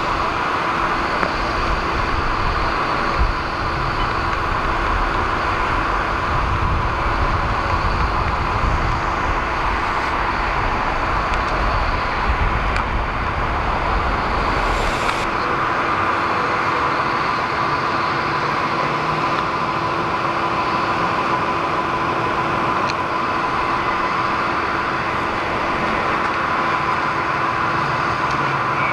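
Steady road traffic noise with a constant high-pitched hum running through it; a low rumble underneath stops about halfway through.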